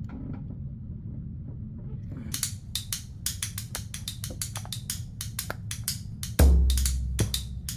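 Background music with a drum beat that comes in about two seconds in, over a low steady hum, with one deep bass hit near the end that is the loudest sound.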